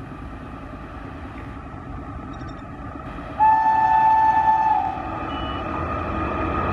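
WAP-5 electric locomotive approaching at speed, the rumble of wheels on rail growing steadily louder. About halfway in it sounds its horn in one loud blast of about a second and a half.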